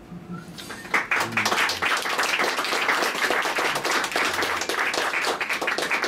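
Audience clapping, breaking out about a second in and carrying on as a steady patter of many hands.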